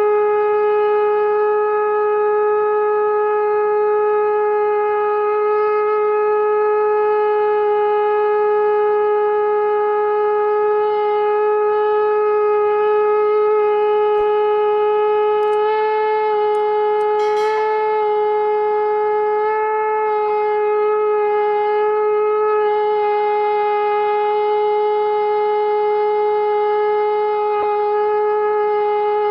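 Conch shell (shankh) blown in one long, unbroken, steady note, with a few small clicks about halfway through.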